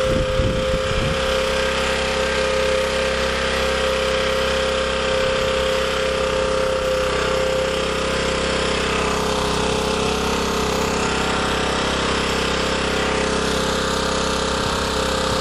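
Portable generator's small gasoline engine running steadily at a constant speed, with an even drone.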